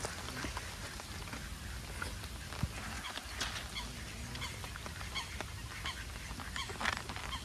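Geese honking in a scattered series of short calls, over a steady low rumble.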